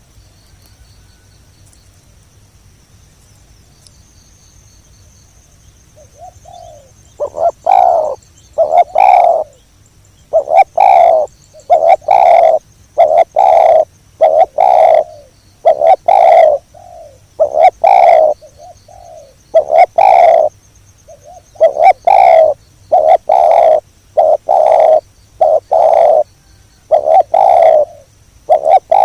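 Spotted doves cooing loudly, call after call, starting about seven seconds in, with a faint high steady whine underneath.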